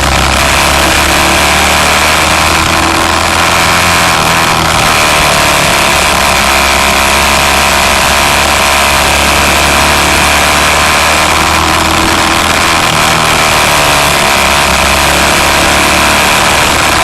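A vehicle under way on a road: a steady, loud engine drone mixed with dense road and wind noise.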